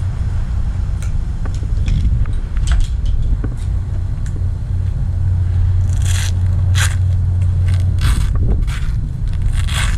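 Steady low rumble with short scraping and rustling strokes over it, a few of them in the first half and several stronger ones in the second half.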